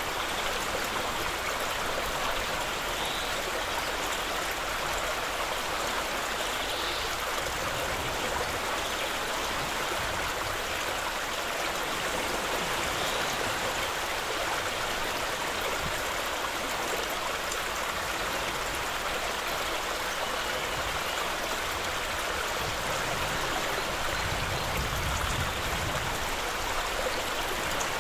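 Shallow stream running over gravel: a steady rush of water.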